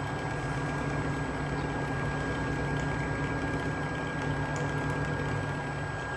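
A motor running steadily with an even hum and a faint constant high whine, no changes in speed or load.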